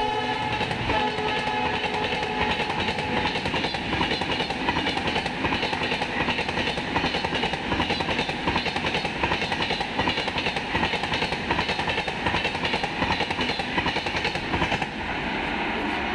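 An express train's coaches rushing past at speed, their wheels clattering fast and rhythmically over rail joints and points. The diesel locomotive's horn sounds at the start and fades out within the first few seconds, and the clatter eases off near the end as the last coaches pass.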